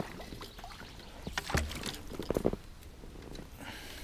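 Double-bladed paddle dipping into a slow river and water trickling off its blades as an inflatable PVC kayak is paddled, with a few light splashes in the middle.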